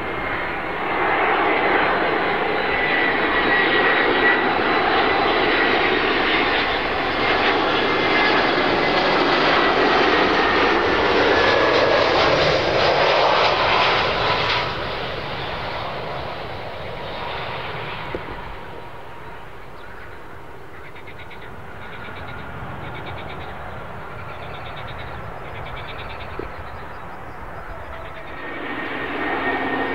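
Airliner engines passing close by: a loud rush with a slowly falling whine that fades after about fifteen seconds to a quieter distant rumble. Near the end a second aircraft's engine noise comes in abruptly.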